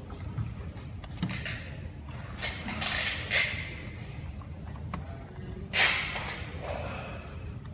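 Hands handling the plastic housing and wire connectors of a C30B robot vacuum's opened circuit board: a few short clicks and two louder scraping rustles, about two and a half seconds in and just before six seconds, over a steady low hum.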